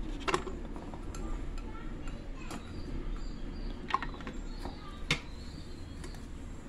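Peeled garlic cloves dropped one at a time into a blender jar, each landing with a short sharp tap on the steel blade and the jar's bottom, several taps a second or so apart.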